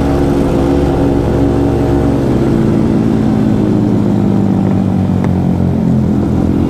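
Yamaha MT-15's single-cylinder engine running under way, heard from the bike. The engine note changes about two seconds in.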